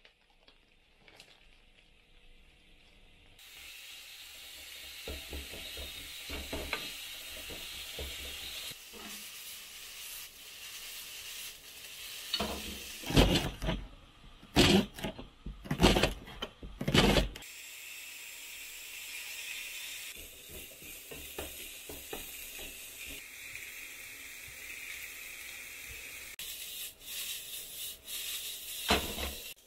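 Minced meat frying in a nonstick pan with a steady sizzle. Partway through, a knife chops a long green onion (negi) on a plastic cutting board in a run of loud knocks lasting a few seconds. Then the sizzle returns as the meat and onion are tossed in the pan, with a single knock near the end.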